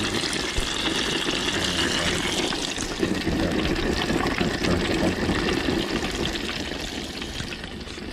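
Hot peanut oil bubbling and crackling steadily in an aluminium turkey-fryer pot as small pieces of duck deep-fry in it, growing somewhat fainter near the end.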